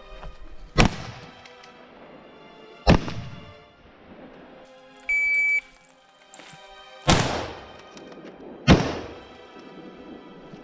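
Four rifle shots heard over background music, two in the first few seconds and two near the end, each sharp and loud with a ringing tail. Midway a short steady electronic beep sounds once, the shot timer's start signal.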